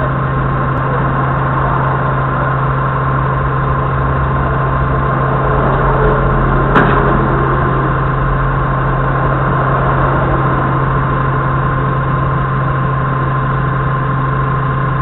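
Doosan 4.5-ton forklift's engine idling steadily, heard from inside the cab, with a thin steady whine over it. A single sharp click about seven seconds in.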